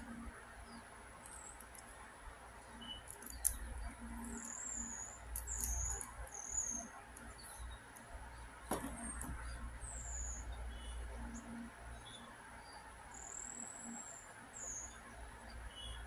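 LEGO Technic plastic parts handled, with a couple of sharp plastic clicks. Short, high, faint chirping squeaks come and go throughout.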